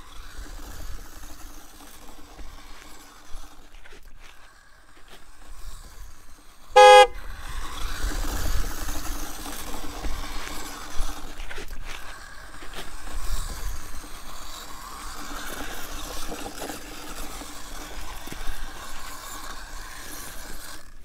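A short, loud car-horn toot about seven seconds in. Around it, the steady whine of a homemade RC car's small high-speed DC motor as it drives over dirt.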